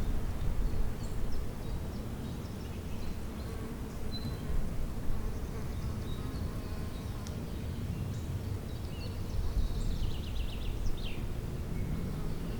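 A bee buzzing steadily, with scattered bird chirps and a quick trill of birdsong near the end.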